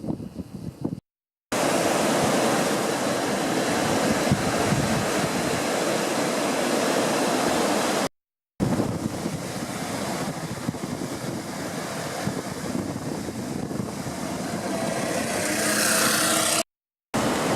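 Steady rush of wind buffeting the microphone mixed with surf from the beach, dropping out briefly twice where the footage cuts.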